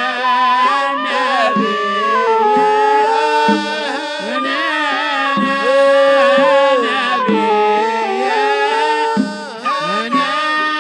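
A group of men's voices singing a Hadrami zarbadi devotional ode together, a melody that bends and glides with long held notes.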